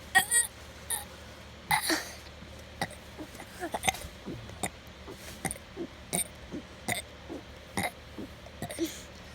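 A young boy burping on purpose, forcing up a string of short burps one after another, roughly one a second, the loudest near the start.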